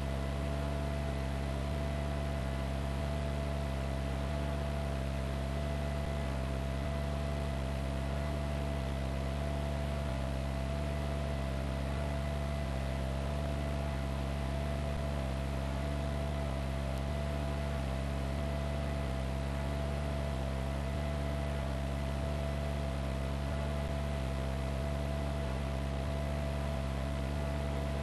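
Steady, unchanging drone of a helicopter's engine and rotor heard from on board, a low hum with a steady whine over a hiss.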